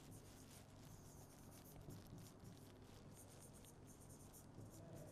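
Faint scratching and light tapping of a stylus writing on a touchscreen display, over a low steady hum.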